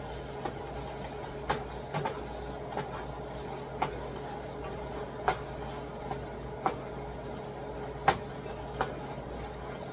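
Wooden spurtle knocking and scraping against a non-stick skillet as browning ground pork is stirred and broken up: about nine sharp taps at irregular intervals, over a steady low hum.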